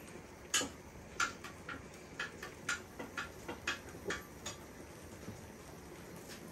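A kitchen utensil clicking and tapping against a cooking pot, about a dozen light, unevenly spaced knocks, which die away about two thirds of the way through.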